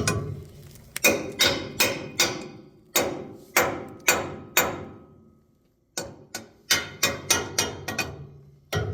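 Hammer banging on a boiler's clogged drain line, ringing metal strikes about two to three a second, with a pause of about a second midway: the strikes are meant to knock the blockage loose so the boiler will drain.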